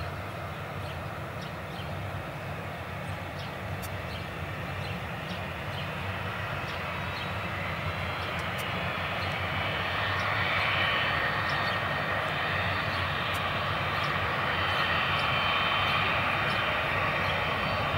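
Four Pratt & Whitney F117 turbofan engines of a Boeing C-17 Globemaster III on final approach, a steady rumble that grows louder as the jet closes in. A high engine whine comes in about halfway through.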